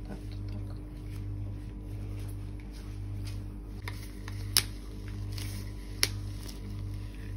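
Quiet background music with a low, evenly pulsing beat. Two sharp clicks come about a second and a half apart in the middle, with faint scraping ticks between them.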